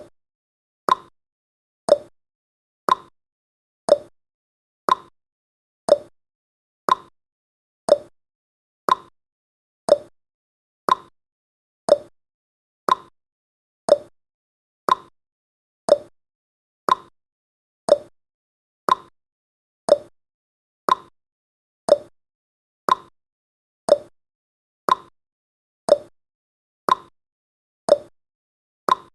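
Countdown timer's ticking sound effect: one short, sharp tick every second, evenly spaced, with silence between.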